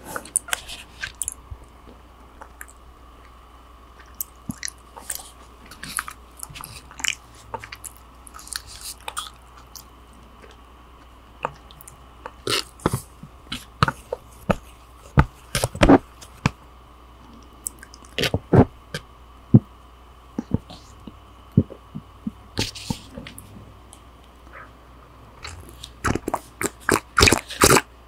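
Close-miked chewing and biting: scattered wet smacks and clicks of a person eating, with a denser run of mouth sounds near the end.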